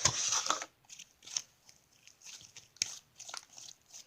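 Slime being squished and poked by hand. There is a dense crackly squelch at the start, then scattered small clicks and pops.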